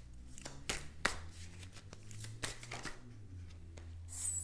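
A deck of tarot cards being shuffled by hand: irregular soft slaps and clicks of cards against each other, over a low steady hum.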